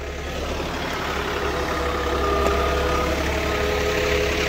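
John Deere tractor engine running steadily with a constant hum and whine, growing a little louder over the first couple of seconds.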